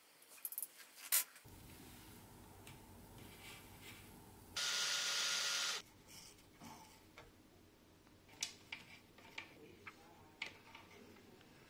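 Small clicks and taps of tools and parts being handled on a CNC router, with a low hum under them. About halfway through, a loud hiss lasts a little over a second and cuts off abruptly.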